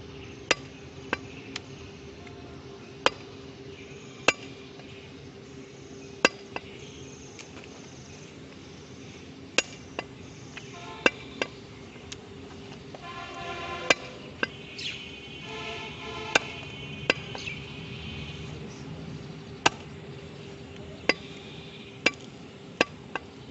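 A butcher's knife chopping goat meat and fat on a wooden tree-stump block: sharp single chops at an uneven pace, one every second or two, each blade stroke hitting the wood.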